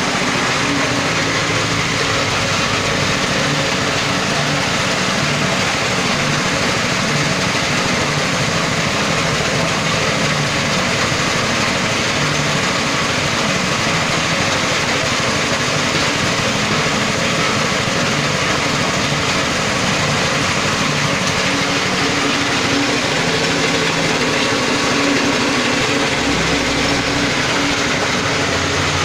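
Small stationary petrol engine running steadily, driving a dried-coffee huller through a V-belt, with the dense rattle of beans being hulled inside the machine.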